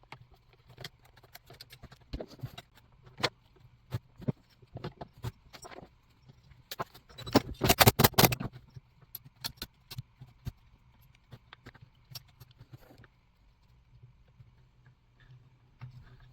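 Chainsaw parts being handled and fitted together: scattered sharp clicks and light metallic rattles, with a denser, louder burst of clattering about halfway through.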